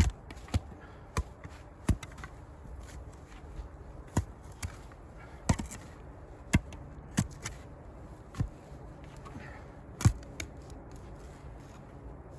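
A digging tool striking into earth and debris, in short sharp knocks at an uneven pace of roughly one a second, the loudest about ten seconds in.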